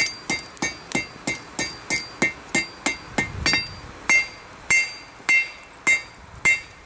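Hand hammer striking a hot railroad spike on a Peter Wright anvil, each blow ringing. It goes at about three blows a second, pauses briefly a little past halfway, then resumes with slower blows. This is the spike being spread and rounded out at forging heat.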